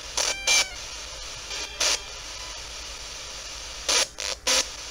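Spirit box sweeping through radio stations: steady static hiss broken by short, choppy bursts of radio sound, two near the start, one just before two seconds and three in quick succession about four seconds in.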